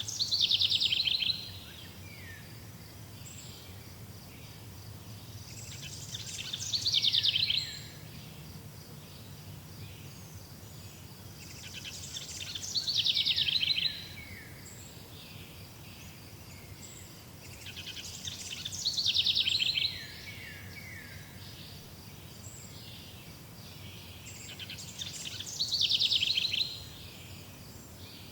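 A songbird repeating the same short song about every six seconds, five times: a quick trill that gets louder and falls in pitch, then ends abruptly. Underneath is a faint, steady, high-pitched background trill.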